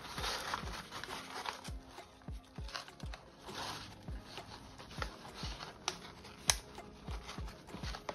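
Paper crinkling and rustling as papers are handled and packed away, over background music with a steady beat. There is one sharp click about six and a half seconds in.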